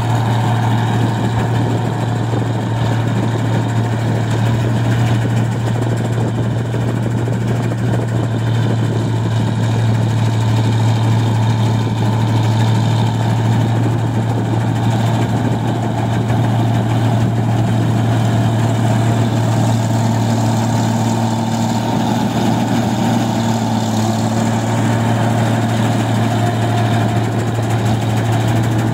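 New Holland 1545 combine harvester running while it harvests rice: a steady engine drone with a constant low hum, and the running noise of the header and threshing machinery.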